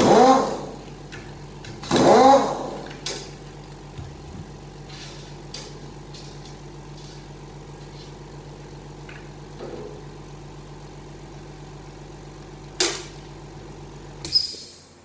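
A steady mechanical hum with an even pitch, which cuts off near the end. A few light clicks and two sharper knocks near the end sound over it, and a man's voice is heard briefly at the start and again about two seconds in.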